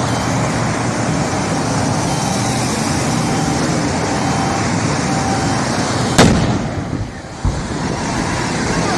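Steady highway traffic noise, then about six seconds in a single loud bang as the burning vehicle explodes, followed about a second later by a second, smaller thump.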